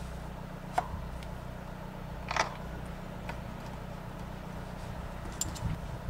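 A few light metallic clicks and clinks as greased brake caliper bolts and small tools are handled at the caliper. There is a sharp click about a second in and a short cluster of clinks just after two seconds, over a steady low background rumble.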